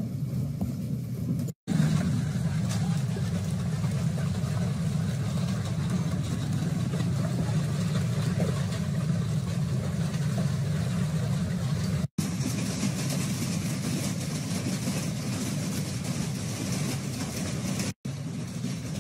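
Severe night hailstorm: a steady roar of wind with falling hail and rain. It drops out briefly three times, and after the second dropout it turns more hissing.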